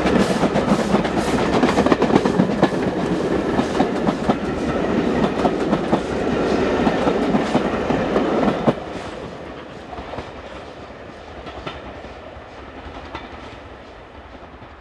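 Steam-hauled passenger train running past close by: the coaches' wheels clatter over the rail joints in a rapid clickety-clack under the locomotive's exhaust. About nine seconds in the noise drops sharply and the train fades into the distance.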